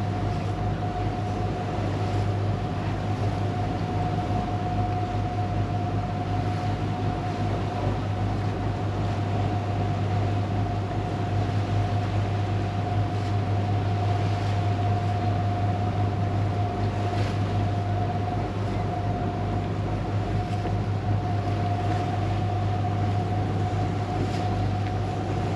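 Passenger boat's engine running steadily under way: an even low drone with a steady whine above it.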